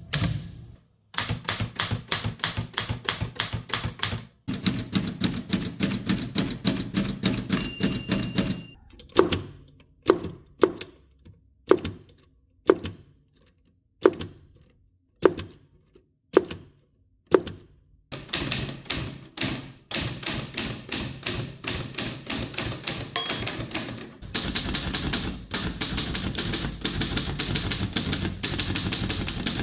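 Typewriter type bars striking the platen: fast runs of keystrokes, then a stretch of slow single strikes about a second apart, then rapid typing again.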